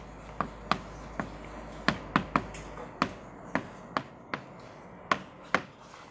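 Chalk tapping and clicking against a blackboard while an equation is written: about a dozen sharp, irregular taps that stop near the end.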